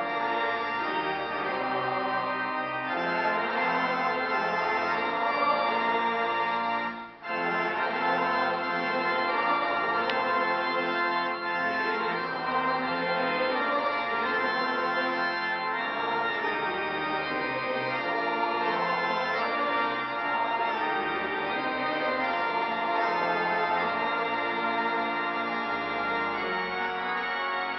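Background music carried by sustained organ chords, with a brief break about seven seconds in.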